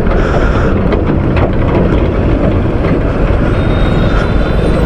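Motorcycle riding over a rough gravel road close behind heavy dump trucks: a loud, dense, steady rumble of engines and tyres on gravel, with a few scattered knocks from the bumps.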